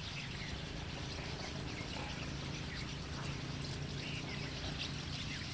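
Quiet rural outdoor ambience with scattered faint bird chirps over a low, steady hum.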